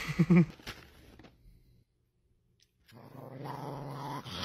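A dog growling steadily, starting about three seconds in after a short silence. Before the silence come a few brief pitched sounds.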